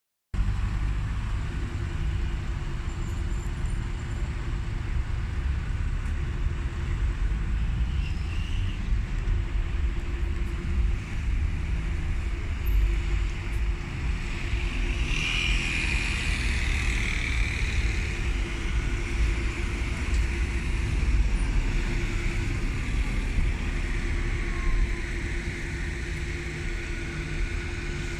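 Steady street traffic noise: a continuous low rumble with a steady hum under it. A higher hiss rises for a couple of seconds about halfway through.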